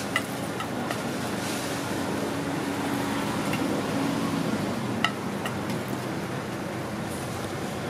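Hotteok frying in oil on a flat steel griddle, a steady sizzle, with the metal hotteok presses clinking against the griddle a few times, sharpest near the start and about five seconds in.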